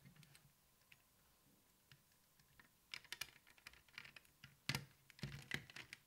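Faint plastic clicks and taps as a 9-volt battery on its snap connector is pressed into a smoke alarm's battery compartment. A quick run of clicks starts about halfway through, with the sharpest one near the end.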